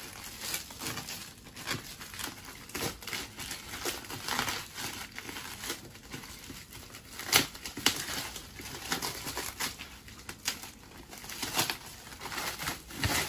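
Plastic parcel wrapping and packing tape crinkling and tearing as a package is unwrapped by hand: an irregular run of crackles, with a few sharper ones in the second half.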